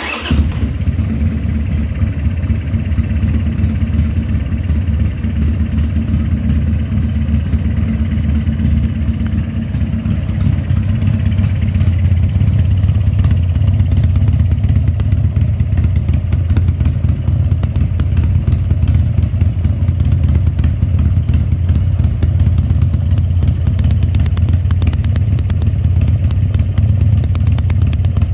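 2000 Harley-Davidson Sportster 1200's air-cooled Evolution V-twin running steadily with its freshly rebuilt carburettor and the air cleaner fitted, a little louder from about twelve seconds in. It runs better than it did without the air cleaner, when it coughed from running a little lean.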